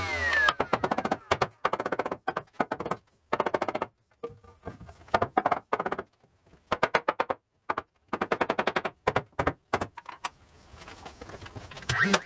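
Impact driver driving screws into framing lumber: short bursts of rapid hammering clicks, one burst after another with brief pauses between.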